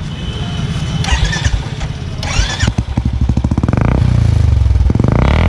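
Royal Enfield Classic 350's single-cylinder engine running loud and deep through an aftermarket Wild Boar silencer. The throttle is blipped twice, at about three and a half and five seconds in, and the revs rise and fall each time.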